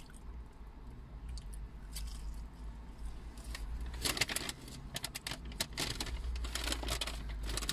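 Close-miked chewing and mouth clicks of people eating fried chicken: scattered sharp, wet clicks that come thicker from about four seconds in, over a low steady rumble.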